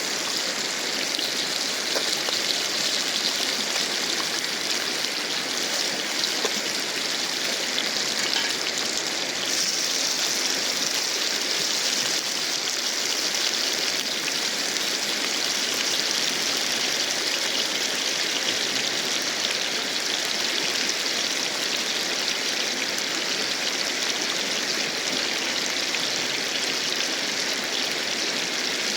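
Fast-flowing river water rushing steadily, an even hiss with no speech over it; the hiss turns a little sharper about ten seconds in.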